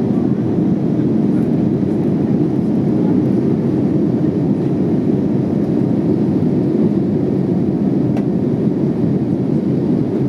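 Cabin noise inside a JetBlue Airbus A321: a steady, even drone of the jet engines and rushing air, low in pitch and unchanging.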